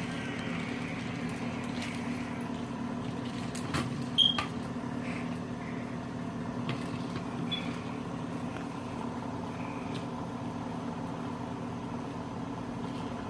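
A steady low mechanical hum, with a brief cluster of sharp clicks about four seconds in.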